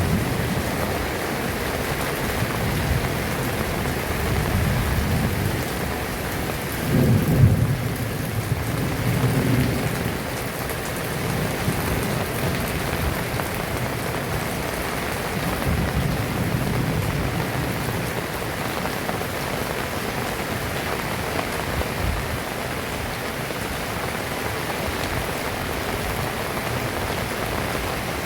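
Heavy rain falling steadily, with low rumbles of thunder. The loudest roll comes about a quarter of the way in, and a weaker one just past the middle.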